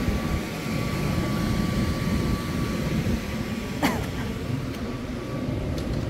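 Passenger train running: a steady low rumble with a thin steady whine over it, and one sharp click just before four seconds in.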